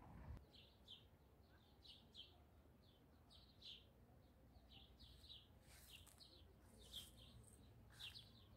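Faint bird chirping: short high chirps, often two at a time, repeating every second or so against near silence.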